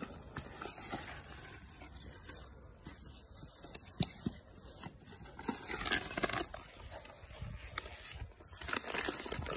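A border collie puppy nosing and rummaging through a gift box of toys and packets, making scattered rustles, crinkles and light knocks of packaging and paper filler, busiest about six seconds in and again near the end.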